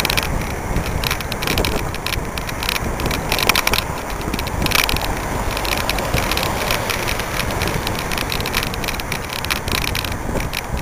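Bicycle rolling along a city road with a bike-mounted camera: wind buffeting the microphone and road rumble, with frequent small rattles and clicks from the bike and mount.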